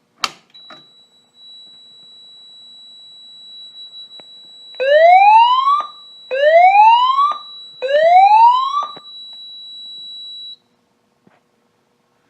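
A pull station is yanked with a sharp snap, followed by a steady high-pitched tone. About five seconds in, a fire alarm voice-evac speaker sounds three loud rising slow-whoop tones, about a second each: the alert that comes before the evacuation message.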